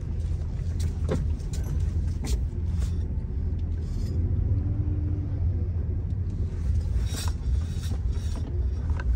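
Semi-truck engine and road rumble heard inside the cab while driving, a steady low drone with a few light clicks and knocks.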